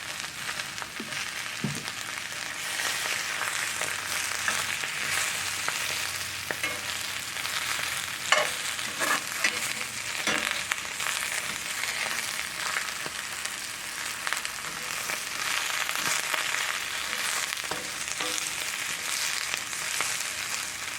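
Potatoes or cabbage frying in a cast iron skillet: a steady sizzling hiss, with a few short knocks about eight to ten seconds in.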